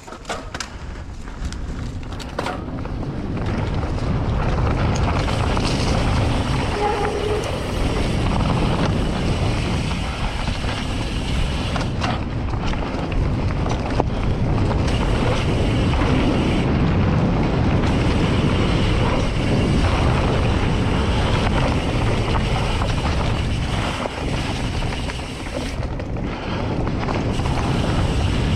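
Mountain bike riding along a dirt trail: rushing wind on the microphone and tyre rumble build over the first few seconds and then hold steady, with occasional sharp knocks.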